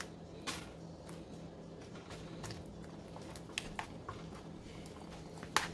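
Stainless steel tongs clicking and clinking against a saucepan and wire rack while chicken wings are dipped in buffalo sauce: a few sharp, separate clicks, the loudest near the end, over a low steady hum.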